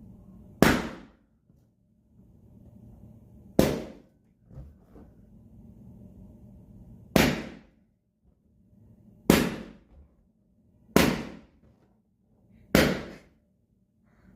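Six rubber balloons popping one after another, each a sharp loud bang that dies away quickly, spaced about one and a half to three and a half seconds apart, with a quieter low noise between the pops.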